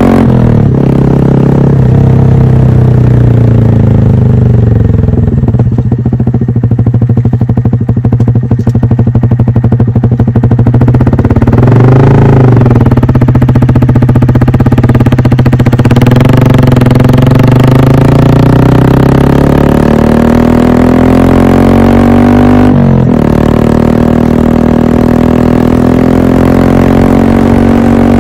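Honda Monkey 125's single-cylinder four-stroke engine running through an Aodonly Racing high-mount exhaust, heard close to the silencer while riding. The engine note drops as the bike slows, blips up and back down once near the middle, then climbs steadily under acceleration, with a gear change about two-thirds through.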